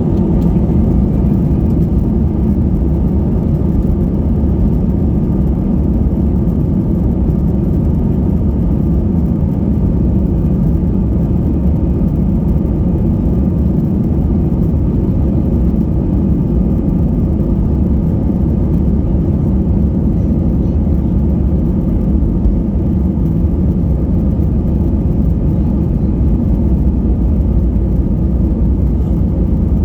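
Airbus A320's CFM56 turbofan engines and airflow heard from inside the passenger cabin: a loud, steady low rumble and whir that does not change.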